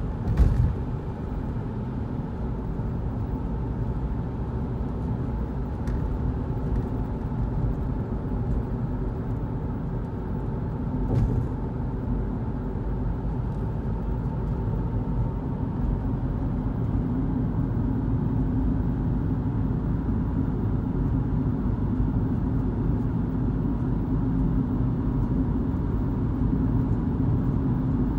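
Car driving at steady speed, heard from inside the cabin: a steady low rumble of engine and tyres on the road, with a faint constant hum and a couple of brief knocks.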